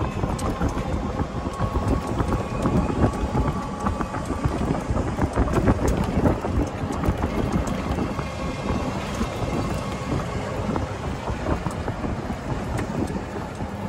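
A golf cart moving along a wet paved path: an unbroken rumble of wind on the microphone and tyres on the path, with frequent small knocks and rattles from the cart.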